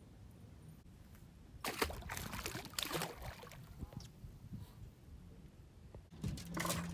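A largemouth bass let go into the water with a splash about two seconds in, followed by water sloshing and dripping. A steady low hum comes in near the end.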